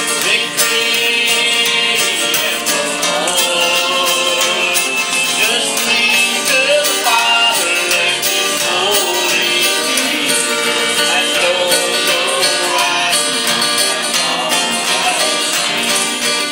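Live acoustic country music: a guitar playing steadily under a wavering melody line.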